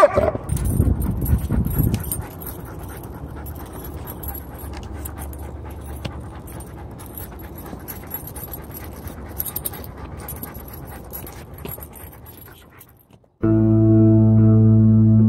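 A German Shepherd gives a short bark right at the start, followed by outdoor noise with faint clicks as the dog is walked on its leash. About two seconds before the end, soft ambient music with a steady held chord starts abruptly and is the loudest sound.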